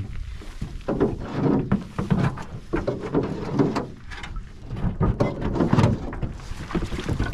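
Irregular knocks, thumps and scrapes of an aluminium boat hull being pushed off a stony shore.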